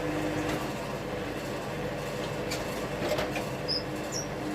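Wood-Mizer LT70 sawmill running steadily with a low hum, with a few sharp knocks and short high chirps near the end.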